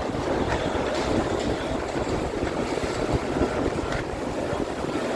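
Wind buffeting the microphone outdoors, a constant gusty rush with a low rumble.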